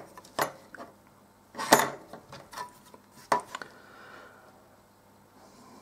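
Bare printed circuit board being handled and turned over, giving a few light knocks and clicks, the loudest just under two seconds in.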